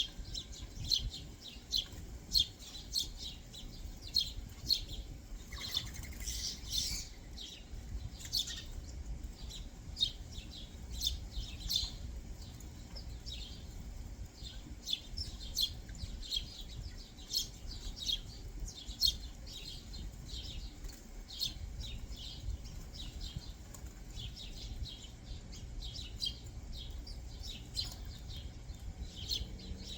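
Backyard songbirds chirping: a steady run of short, high chirps, several a second, over a low background rumble. A brief rustle comes about six seconds in.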